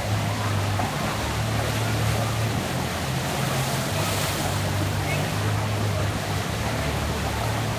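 Amusement park ambience: a steady rushing noise over a low machine hum that shifts in pitch now and then, with voices mixed in.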